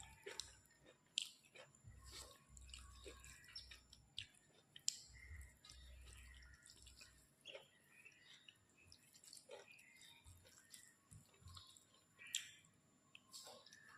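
Faint, wet chewing and mouth sounds of someone eating rice and curry: soft squelches and small irregular clicks and smacks.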